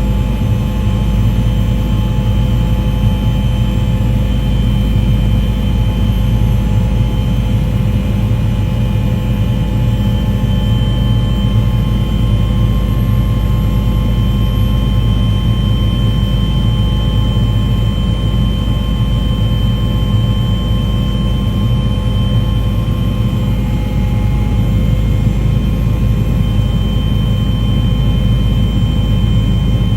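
A steady, loud engine drone with a heavy low rumble and constant pitch throughout.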